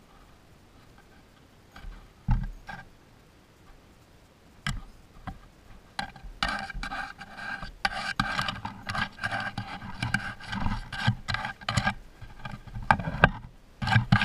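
Baby striped skunks nosing and pawing right at the camera, rubbing and scraping against it with irregular knocks. A few scattered bumps at first, then busy, close scratching and rubbing for the last several seconds, loudest near the end.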